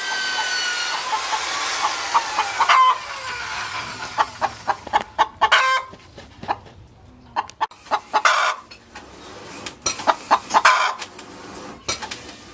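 Chickens calling: a long drawn-out call that slowly falls in pitch over the first few seconds, then a run of short clucks.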